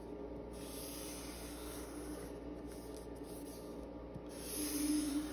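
Felt-tip marker drawn along a ruler on paper: a faint scratchy rub that swells near the end.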